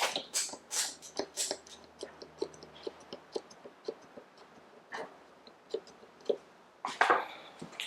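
Handling sounds: irregular light clicks and taps, with louder rustling bursts near the start and again about seven seconds in.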